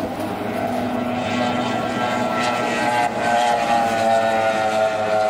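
Racing boat's outboard motor running at full throttle, a steady high engine tone that gets louder about three seconds in as the boat passes close.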